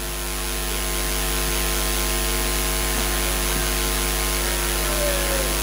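Steady electrical mains hum with hiss from a stage sound system with its handheld microphones live, unchanging throughout.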